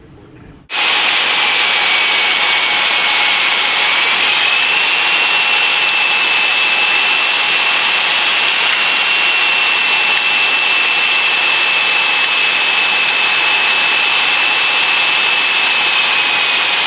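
Inside the cabin of a Cessna 172P, its four-cylinder Lycoming engine and propeller run steadily together with the rush of airflow as the plane comes in to land. A thin steady whine sits over the drone and steps up slightly a few seconds in. The sound cuts in suddenly just under a second in.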